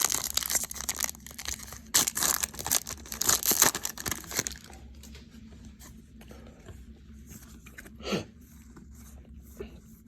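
A trading-card pack's wrapper being torn open and crinkled for the first four and a half seconds, then quieter handling of the cards with small clicks and a short rustle near the end.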